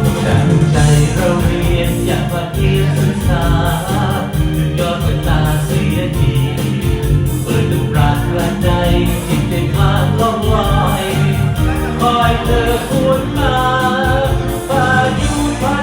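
Music: a song with a singing voice over band accompaniment and a steady beat.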